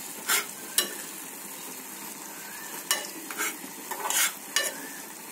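A metal spoon stirring and scraping grated carrot halwa in an aluminium pan, with short scrapes every second or so over a steady sizzle. The carrot, milk and ghee are frying down until the milk dries.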